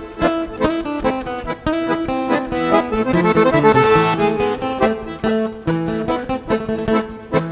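Background instrumental music: an accordion-led tune over plucked guitar with a steady beat.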